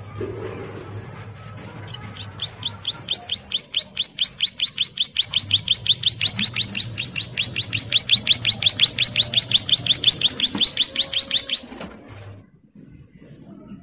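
A caged ciblek (prinia) calling for its mate in a long, rapid "ngebren" trill of sharp high notes, about five or six a second. It starts about two seconds in, grows steadily louder and stops abruptly near the end.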